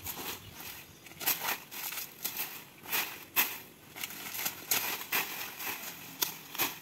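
Machete chopping into a banana plant while its dry leaves rustle and crackle as they are cut and pulled away, in a string of irregular strokes.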